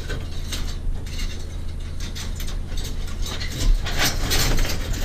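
Mangled barbed wire rattling, clinking and scraping in irregular bursts as it is handled and shoved in, over a steady low hum.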